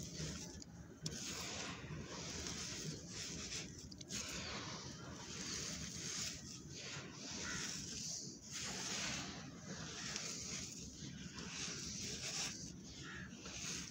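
Dry, crunchy sandy soil squeezed in the hands and poured back out through the fingers: gritty crunching and a hiss of falling grains, coming in waves every second or two.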